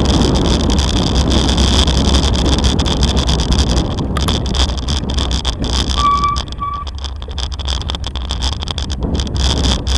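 Bicycle rolling over cobblestone paving, heard from a camera mounted on the bike: a continuous rattle of small knocks over a deep rumble, with wind on the microphone. The rumble eases about four seconds in. About six seconds in come two short high beeps.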